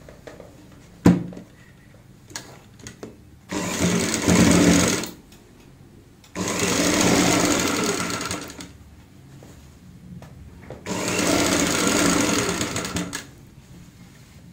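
Sewing machine stitching in three runs of about two seconds each, stopping between them, as the piped neck facing is sewn along the earlier piping seam. A sharp click comes about a second in, followed by a few lighter clicks.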